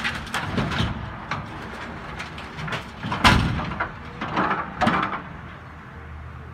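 Tracked excavator tearing into a house: a string of cracks, splintering and crashing debris, the loudest crash about three seconds in and another burst a second or so later, over the machine's engine running steadily.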